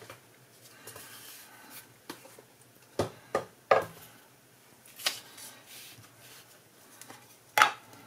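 Craft supplies handled on a tabletop: a stamping mat and card laid down and slid into place, with soft rubbing and scraping and five sharp knocks as things are set down, the loudest near the end.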